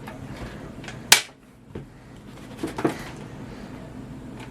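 Plastic parts of a Logitech G203 Lightsync mouse being slid and snapped back together: one sharp click about a second in, then a fainter knock and a few light knocks near the end.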